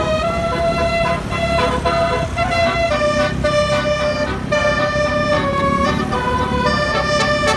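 Telolet horn playing a melody: a run of held, multi-tone horn notes stepping from pitch to pitch every half second to a second, over a steady low rumble.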